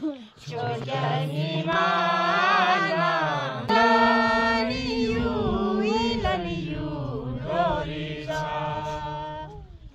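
A group of people singing a slow, chant-like song together: long held notes that waver gently in pitch, with a louder new phrase starting a few seconds in.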